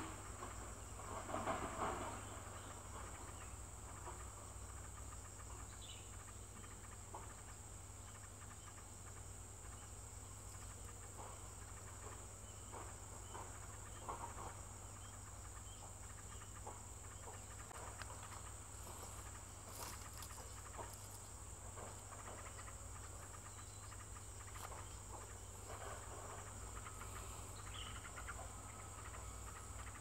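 Faint, steady high-pitched insect drone, with scattered soft rustles and ticks.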